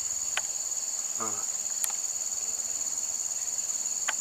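Steady high-pitched insect chorus, a continuous shrill drone with no breaks, with a few faint sharp clicks.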